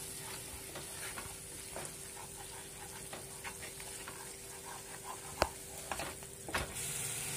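Wooden spatula stirring and scraping a thick cashew, garlic and green-chili paste that is being fried down in oil in a nonstick pan, with a light sizzle. A sharp click about five and a half seconds in, then a couple of soft knocks.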